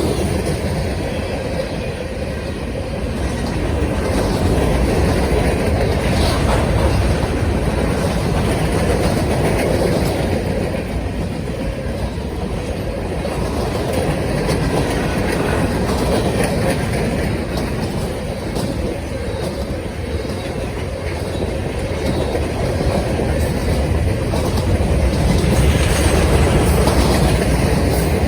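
Norfolk Southern freight train rolling past: a steady rumble of steel wheels on the rails with rhythmic clacking over the joints, swelling louder twice.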